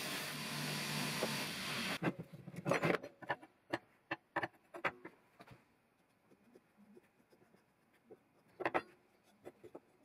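Belt grinder running with a low hum as steel is ground on the belt, stopping abruptly about two seconds in. Then scattered light knocks, scrapes and taps of a steel blade and a marker handled on a wooden workbench, with a louder clatter about two-thirds of the way through.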